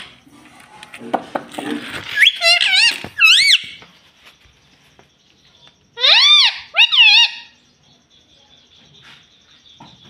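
Indian ringneck parakeet calling: two bursts of high, rising-and-falling notes, about two seconds in and again about six seconds in, with a few light clicks before the first burst.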